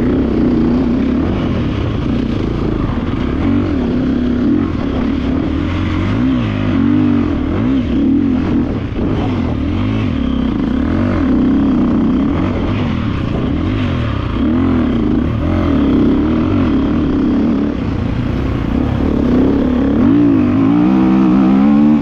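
GasGas EC 350F's single-cylinder four-stroke engine running hard, its pitch rising and falling again and again as the throttle is opened and closed, with a rising rev shortly before the end.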